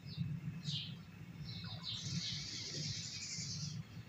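Small birds chirping: a few short, high chirps, then a longer run of chatter about halfway through, over a steady low hum.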